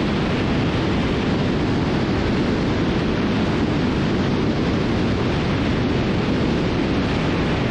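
Steady rush of wind and twin-engine noise from a Cessna T310R in cruise flight, caught by a wing-mounted camera, with no changes in pitch or level.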